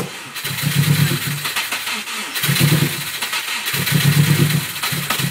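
Subaru Impreza's flat-four boxer engine being cranked and stumbling into life unevenly. It fires for about a second at a time, dies back and catches again, four or five times: a hard start after six months standing, which the owner judges not right.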